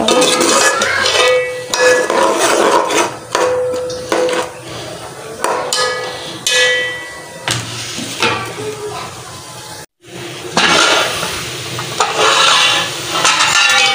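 Steel ladle stirring a thick masala of peas and potatoes in an aluminium cooking pot, knocking and scraping against the pot, which rings briefly after each knock. After a brief break near ten seconds, more metal clatter as the lid and ladle are handled on the pot.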